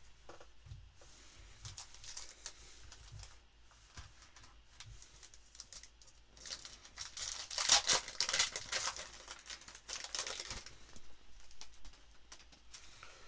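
Wrapper of a trading-card pack crinkling and tearing open, loudest for a few seconds past the middle, with softer rustling before and after.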